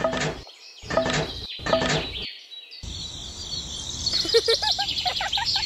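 Three short, loud bursts of sound in the first two seconds. After a brief cut to silence comes steady outdoor background hiss, with birds chirping in quick runs of rising and falling notes through the second half.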